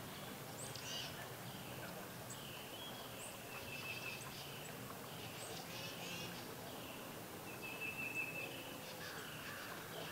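Small birds chirping and calling in the woods, with a short trilled note repeated a few times, over faint steady outdoor background noise.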